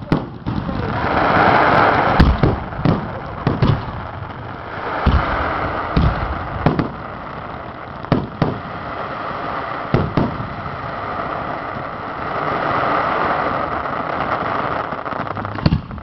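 Aerial firework shells bursting in a display: sharp booms at irregular intervals, every second or two, with a rushing noise swelling between them.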